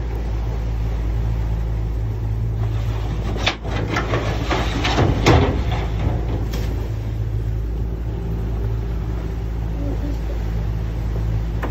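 Creel boat's engine running steadily under way, with a burst of knocking and scraping in the middle as a wire lobster creel goes down the stern shooting ramp into the sea.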